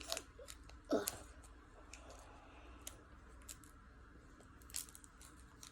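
Faint scattered clicks and light handling noise from a foil Pokémon card booster pack being handled before it is opened, with a slightly louder short sound about a second in.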